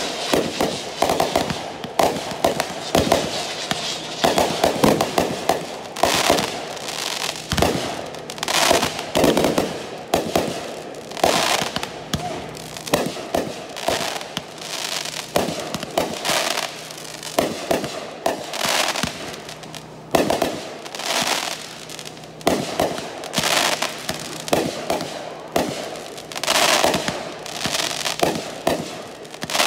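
Aerial fireworks going off one after another: a dense run of sharp pops and bangs, with louder shell bursts every few seconds and no real gaps.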